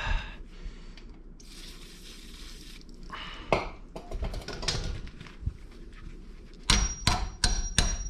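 Hammer blows on seized, rusted steel suspension parts: a fast run of sharp metallic strikes, about four a second with a ringing tone, starting near the end. Before that, a brief hiss and a few scattered tool clicks.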